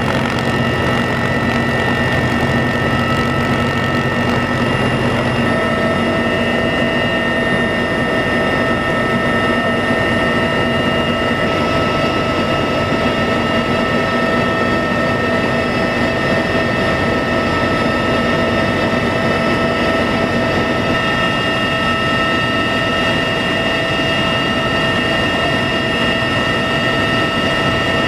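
Loud, steady cabin noise of a military transport rotorcraft in flight: a rushing engine and rotor roar with several constant whining tones from the turbines and gearbox.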